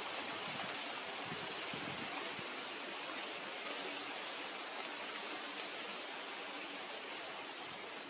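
Steady, even hiss of outdoor background noise with no bird calls, and a few faint low knocks in the first couple of seconds.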